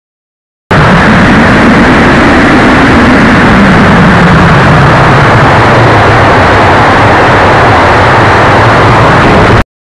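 Loud, distorted rush of air over a model rocket's onboard camera as the Estes Cosmic Explorer climbs on its upper stage, with a low drone underneath that slowly falls in pitch. It starts suddenly about a second in and cuts off abruptly near the end.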